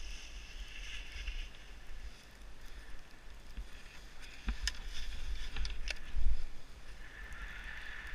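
Skis sliding and scraping over snow, with a steady low rumble of wind on the helmet camera's microphone. A few sharp clicks come in the middle, followed by a loud low thump about six seconds in.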